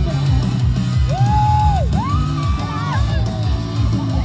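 Live rock band music with a steady drum beat and guitar, heard from the audience. A voice holds a long high note about a second in, then another that rises and breaks at about two seconds.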